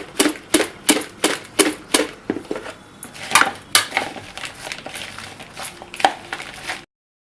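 Fried potato fingers being shaken in a covered container, knocking against its sides in a quick rhythm of about three shakes a second. After about two seconds the shaking slows to a few separate knocks, and the sound cuts off suddenly near the end.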